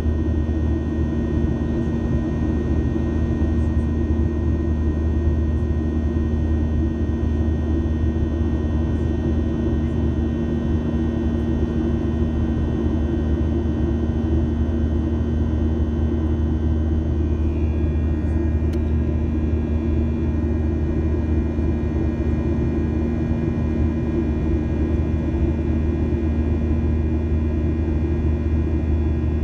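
Jet airliner cabin noise from inside the plane in flight: a steady low rumble of engines and airflow, with a few steady whining tones over it.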